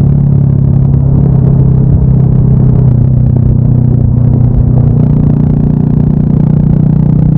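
Honda Monkey 125's single-cylinder four-stroke engine running steadily under way, with a low rumble underneath; the engine note shifts slightly a few times.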